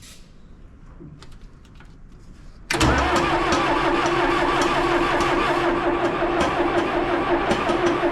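Starter cranking a John Deere 710 backhoe's diesel engine on starting fluid, kicking in suddenly about three seconds in and running steadily: a starter whine over the rhythmic turning of the engine. The engine is hard to start because its injection pump is not delivering fuel to the injectors.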